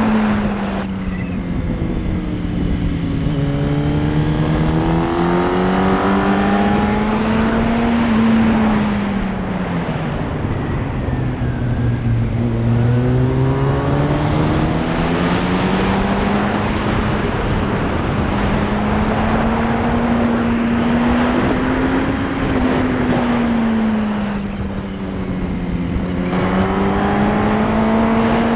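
Yamaha R1's inline-four engine running at speed, its pitch easing down and climbing back several times as the throttle is rolled off and reopened. Wind rushes over the microphone throughout.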